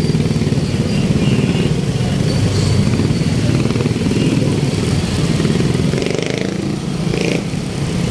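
Street traffic, with motorcycle and other vehicle engines running close by in a steady, loud rumble.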